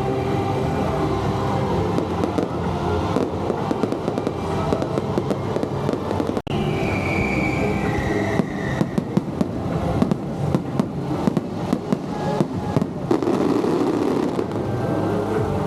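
Fireworks going off: a whistling shell gliding down in pitch, then a run of rapid bangs and crackles. A steady pitched sound fills the first part and breaks off about six seconds in.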